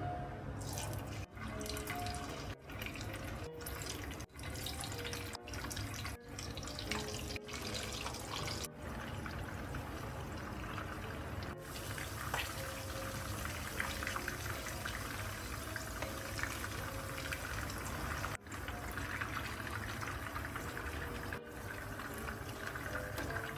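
Pieces of salted fish frying in hot oil in a pan: a steady sizzling hiss with crackle, broken by brief gaps every second or so in the first several seconds. Soft background music plays under it.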